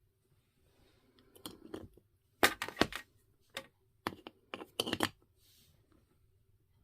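A bottle knocking and clicking against a hard 3D-printed plastic holder as it is set in and tried for fit: a cluster of sharp clicks and knocks in the middle, the loudest about two and a half seconds in.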